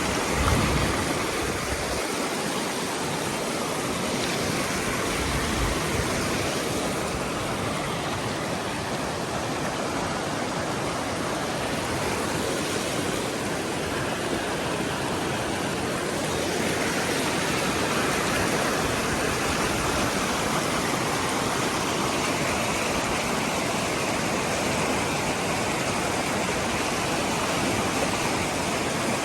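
Steady rushing of creek water, an even noise with no let-up.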